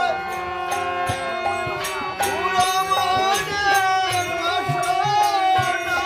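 Bengali devotional kirtan music with no words: a held, wavering melody line over regular drum strokes and jingling hand percussion.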